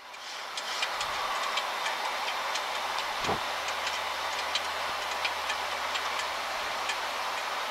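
Steady rushing of air and ventilation noise in an airliner flight deck during the climb after takeoff, with a faint low hum underneath. Faint ticks come at irregular intervals, and there is a brief soft knock about three seconds in.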